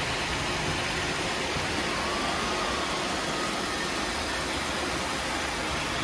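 About a dozen robot vacuums of several makes, including iRobot Roombas, running at once on a hardwood floor: a steady, even whir of their suction motors and brushes.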